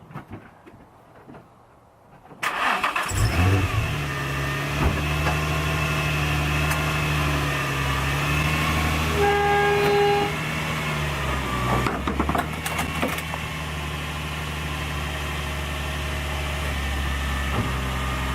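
Nissan 350Z's 3.5-litre V6 engine starting about two seconds in, then idling steadily. A brief beep sounds about ten seconds in.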